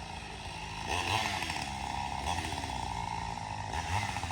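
Chainsaw running and revving up about a second in and again near the end as it cuts into a tree being felled.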